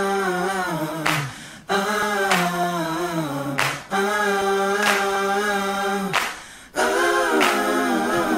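Background music: a solo voice singing slow phrases of long held notes, with brief breaks between phrases and sharp clicks at intervals.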